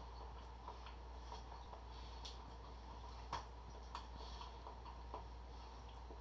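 Faint, irregular clicks and small crackles of someone eating soft bread held in the hands, a few seconds apart, over a steady low hum.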